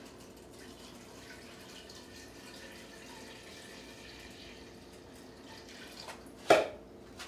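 Vinegar-and-water marinade trickling in a steady stream from a plastic measuring container into a stainless steel saucepan, faint over a steady low hum. About six and a half seconds in comes a single sharp knock, the loudest sound.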